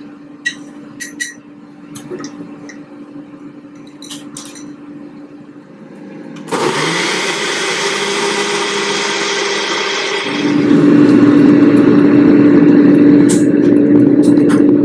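Ninja countertop blender switching on suddenly about six seconds in and whirring as it purées pasilla chiles with milk and cream into a sauce, after a few light spoon clinks against the plastic blender cup. About ten seconds in a louder, steady mechanical hum with a low drone takes over.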